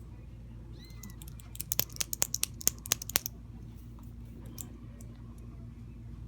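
A very young Exotic Shorthair kitten gives a brief, faint, high mew. Then comes a quick run of about a dozen sharp clicks over about a second and a half, the loudest sounds here.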